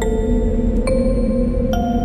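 Horror sound-effect music: bell-like chimes struck three times, about one a second, each ringing on over a low steady drone.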